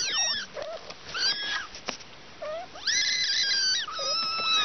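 Kittens mewing: a string of short, high-pitched mews, with the longest about three seconds in.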